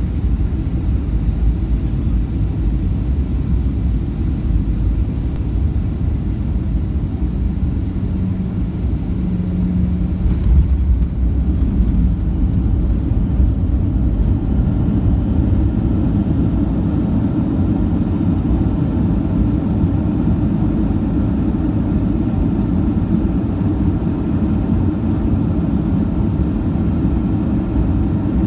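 Cabin noise of a Boeing 737-800 landing, heard inside the cabin by the wing: a steady low rumble of the CFM56 engines and airflow, with a brief knock about ten seconds in as the wheels touch down. After that the rumble grows a little louder and a steady whine joins it as the jet slows on the runway.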